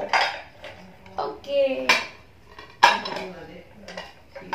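China plates and bowls clinking against each other as they are stacked, a few sharp clinks with short ringing, the loudest about three seconds in.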